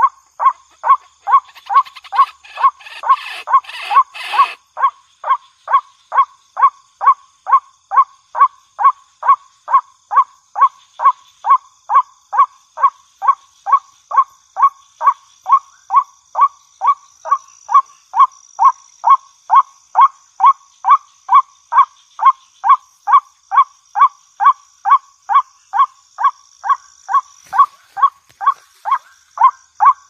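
White-breasted waterhen calling a harsh, monotonous 'ruak' over and over, about two calls a second, each call sliding down in pitch. A faint steady high-pitched tone runs behind the calls, and a brief rustling noise comes a couple of seconds in.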